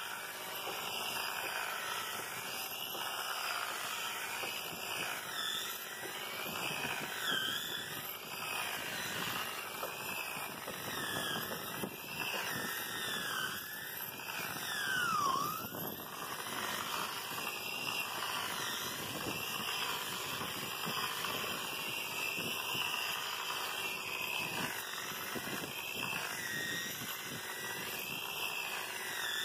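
Electric angle polisher with a 60-grit sanding disc running steadily against a wooden boat hull: a motor whine with abrasive scrubbing of paper on wood. A few brief gliding squeaks ride over it, the clearest about halfway through.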